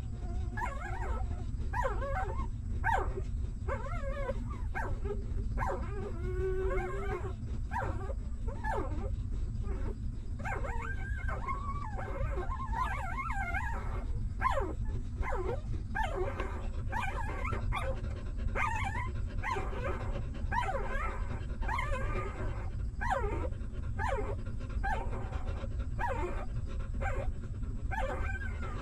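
Newborn puppies whimpering and squeaking: many short, wavering high calls in quick succession with hardly a break. A steady low rumble runs underneath.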